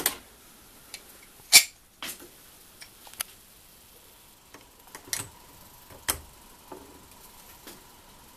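Scattered sharp metallic clicks and clinks as a freshly heated ball bearing, gripped in pliers, is set onto a Simson moped engine's crankshaft journal. The loudest clink comes about one and a half seconds in, with fainter ones every second or so after.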